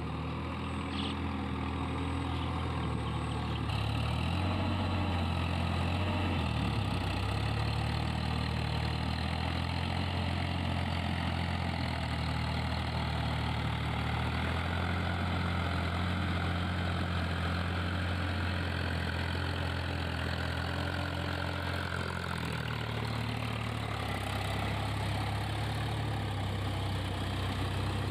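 Tractor diesel engine running steadily under load while driving a rotary tiller, its pitch dipping and recovering a couple of times.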